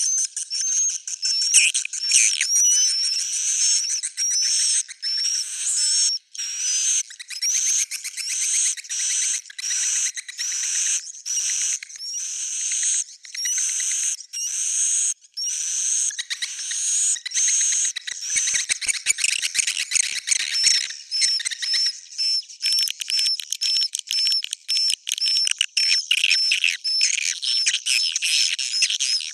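Swiftlets twittering: a dense stream of rapid, high chirps in short bursts with brief gaps. This is a swiftlet call recording of the kind played to draw swiftlets into a nesting house.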